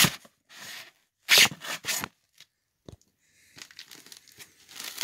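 Packaging being cut and torn open in several loud rips, then a steady scratchy rustle and creak of a styrofoam packing block being handled and pulled apart.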